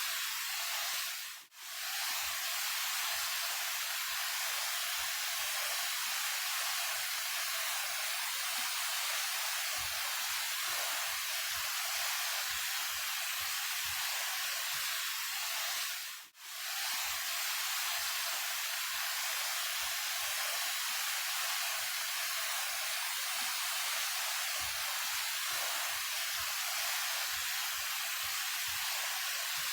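Daehye Falls, a 28 m waterfall, pouring steadily: an even rushing hiss. It dips out briefly twice, about 15 seconds apart, where the looped recording is joined.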